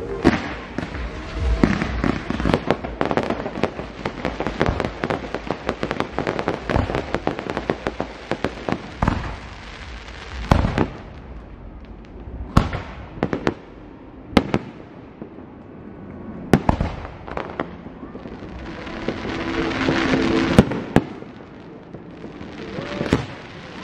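Aerial fireworks going off: a dense, rapid crackle of bangs for about the first ten seconds, then single louder shell bursts a second or two apart.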